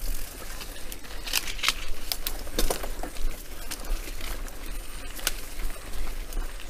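Mountain bike ridden over a dirt forest trail: irregular clicks and rattles as the bike jolts over the ground, over a steady low rumble.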